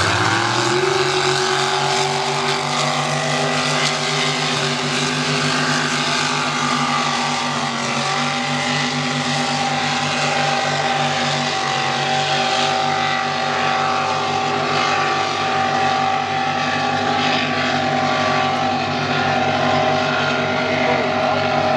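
Engines of two racing lobster boats running flat out side by side, a steady loud drone whose pitch climbs just after the start and steps up slightly about eight seconds in.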